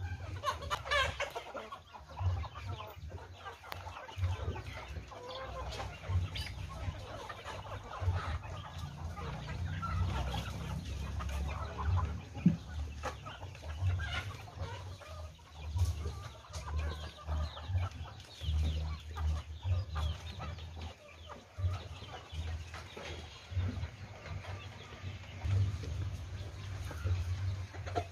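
Village chickens (ayam kampung) clucking, with short scattered calls throughout, over a loud, uneven low rumble.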